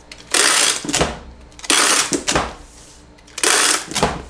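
Handheld tape gun running packing tape across a cardboard shipping box: three loud strips of tape unrolling, about a second and a half apart.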